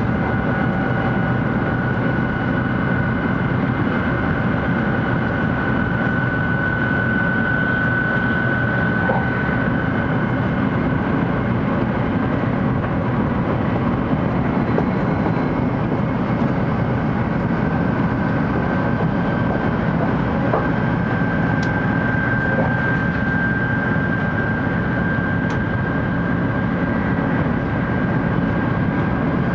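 Cabin noise inside a 700 series Shinkansen car running along the line: a steady rumble with a thin, steady high whine over it.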